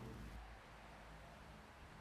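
Near silence: the tail of orchestral music dies away in the first half-second, leaving only a faint low hum.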